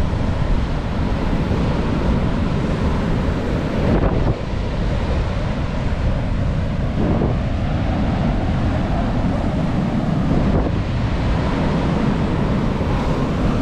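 Strong sea wind buffeting the microphone over the steady rush of breaking surf on a rough-sea day, with a few brief swells of noise.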